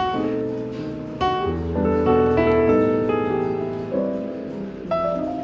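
Smooth jazz piano music: sustained chords with a walking bass line, a new chord struck about every second.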